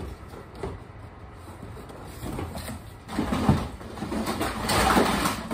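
Rummaging through a cardboard box of plastic BB guns: scattered knocks, then a longer spell of rustling and clattering from about halfway, loudest near the end.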